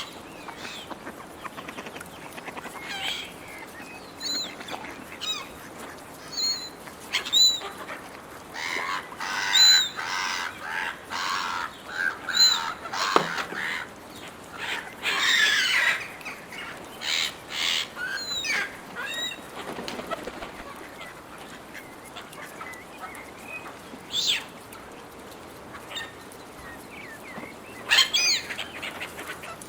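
Gulls squabbling over food: many short, harsh calls overlapping, coming thick and fast through the middle, thinning out, then a last loud cluster of calls near the end.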